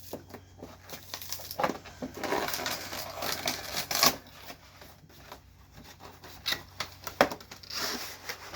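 A cardboard Pokémon card box and its plastic wrapping being worked open by hand: irregular crinkling, tearing and sharp clicks and taps, busiest in the middle and again near the end.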